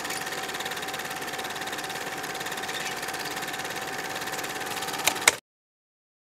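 Film projector running, a steady fast mechanical clatter with a steady high whine. It ends with two sharp clicks about five seconds in, then cuts off suddenly.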